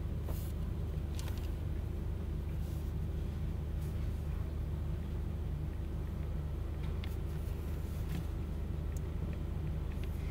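Steady low hum and rumble of room background noise, with a few faint light taps and clicks scattered through it.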